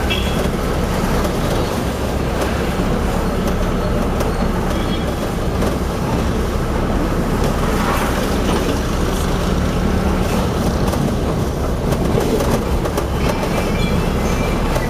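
Steady engine and road noise of a moving taxi, heard from inside the cabin, with a low rumble and many small rattles throughout.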